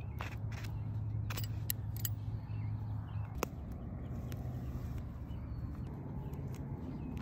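Outdoor ambience: a steady low rumble of wind on the microphone, with scattered sharp clicks and taps.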